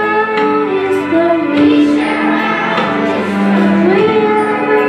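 A young girl singing a solo into a handheld microphone through a PA, holding long notes over instrumental backing music.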